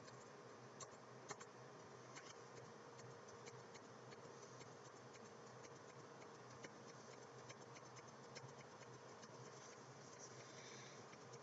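Faint computer keyboard keystrokes: scattered soft clicks, with a few sharper ones in the first couple of seconds, over a low steady hum.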